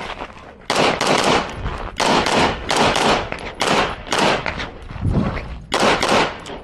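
Pistol fired rapidly in quick pairs and strings, with short pauses between target arrays, during a timed USPSA stage run. There is a brief lull about five seconds in, then firing resumes.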